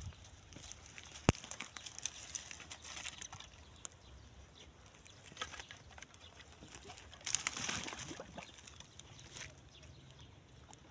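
Faint rustling and crackling of dry twigs and brush, in two brief spells. There is a sharp click about a second in.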